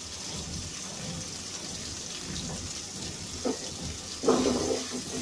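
Hot oil sizzling steadily in an aluminium pot with frying onion and ground spices. About four seconds in, a wooden spatula stirs the mixture and the sound gets louder.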